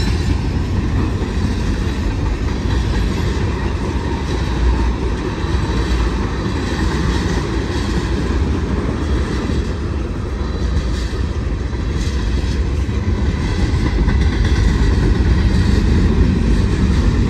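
Freight cars of a long mixed train rolling past at close range: a steady rumble of steel wheels on rail. It grows a little louder near the end.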